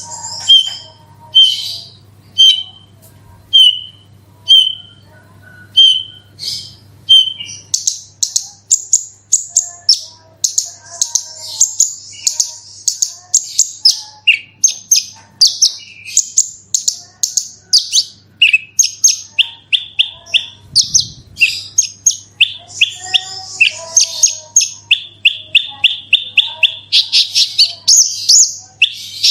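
Javan bush lark (branjangan) singing: single high chirps spaced under a second apart at first, then from about eight seconds in a fast, continuous run of rapid-fire high notes and trills.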